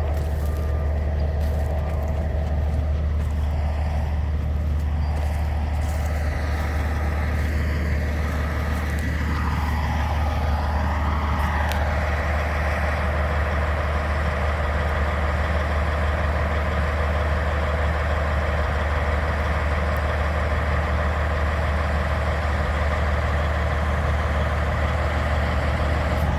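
Peterson 5710C horizontal grinder's Cat C27 diesel engine running steadily with a deep, constant hum; about ten seconds in, a higher whine dips and climbs back up.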